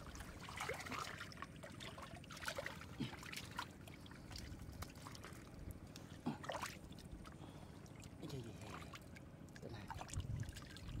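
Faint trickling and small splashes of shallow muddy water, with scattered light clicks.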